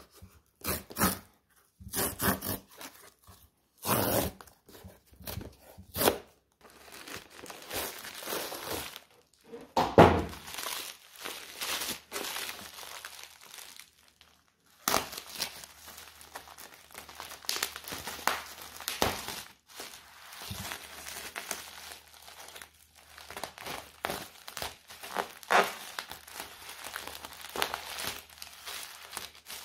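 Crinkly material being handled: irregular crinkling and rustling with tearing and thunks, briefly quiet about halfway through, then more continuous rustling.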